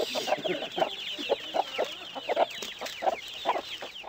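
Domestic chickens clucking over and over in short repeated calls, with many quick, high falling chirps mixed in.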